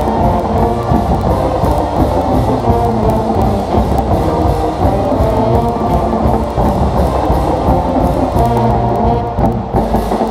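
School pep band playing a tune: wind instruments holding notes over a steady drumbeat.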